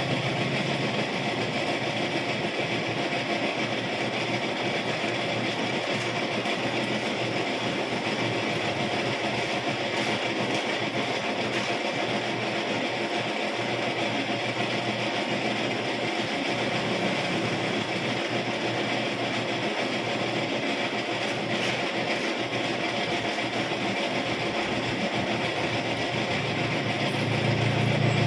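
Metalworking machine running steadily, with an even hiss and hum that doesn't change in speed.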